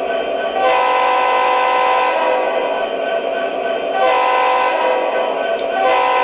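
Horn sound effect from the onboard sound system of an MTH RailKing O-scale SD70ACE diesel model, giving three multi-chime horn blasts: two of about a second and a half each, and a third starting near the end. A steady ringing sound-effect bed runs underneath.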